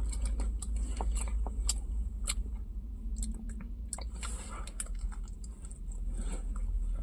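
A person chewing a mouthful of chicken burger close to the microphone, with many irregular wet mouth clicks and smacks.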